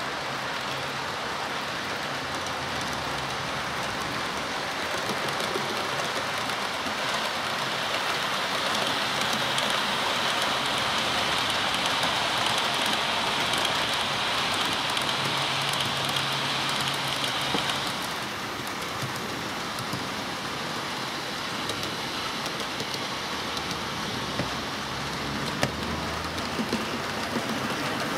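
OO gauge model trains running on the layout: a steady rolling hiss of wheels on track, with a higher motor whine that swells as a train passes close and stops about two-thirds of the way through. A few sharp clicks near the end.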